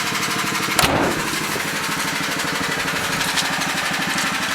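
An engine running steadily with an even, rapid beat, with a single sharp knock about a second in.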